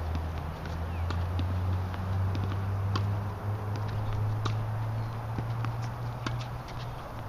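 Tennis balls struck by rackets and bouncing on a hard court during a rally: a dozen or so sharp, irregularly spaced pops over a steady low rumble.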